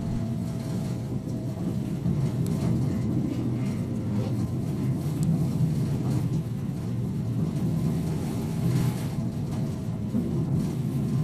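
Hino Poncho small bus under way, heard from inside the passenger cabin: a steady diesel engine drone mixed with road and body noise.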